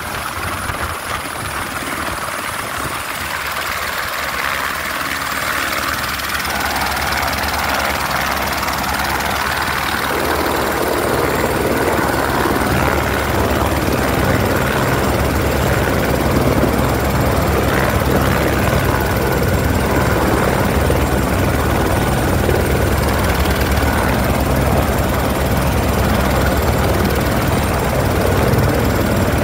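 AS350-type single-engine turbine helicopter running on the ground with its main rotor turning: a steady low rotor beat under a thin high turbine whine. It grows louder over the first fifteen seconds or so, then holds steady.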